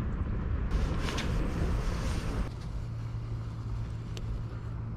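Wind buffeting the microphone over a steady low hum, with a louder rush of wind from about a second in that stops abruptly partway through.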